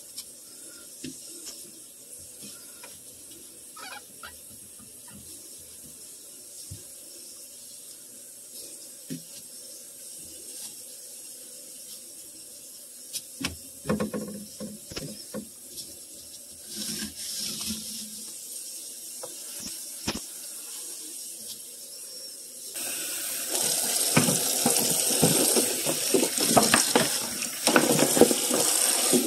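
Faint clicks and knocks of handling at first. Then, about three-quarters of the way through, a sink tap is turned on and water runs and splashes over plastic fridge shelf mats being rinsed under it.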